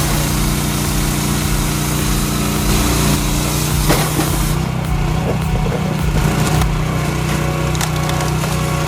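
Engine of a wood-splitting machine running steadily, with a few short, sharp knocks.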